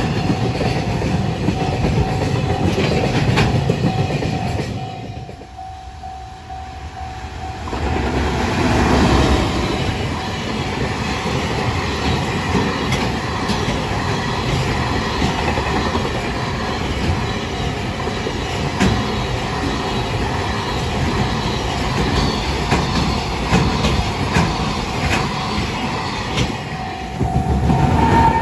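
Freight trains passing a level crossing at speed: the wagon wheels clatter over the rail joints while the crossing's warning bell rings steadily. The sound drops away about five seconds in, then the clatter resumes, and near the end an electric locomotive passes louder.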